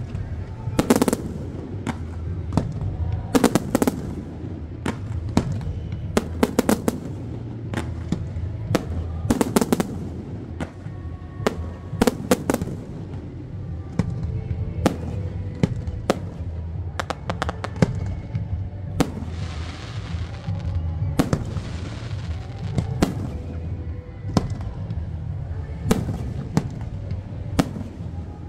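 Fireworks display: aerial shells launching and bursting in a rapid, irregular barrage of sharp bangs, some in quick clusters. Dense crackling from crackling-star shells comes about two-thirds of the way through.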